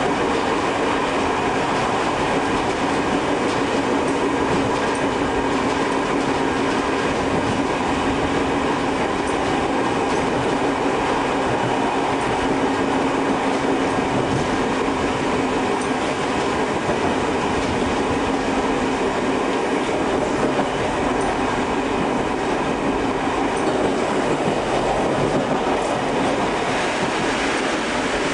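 Tobu 5700 series electric train running along the track, heard from the cab: a steady rumble of wheels on rail with a few steady humming tones.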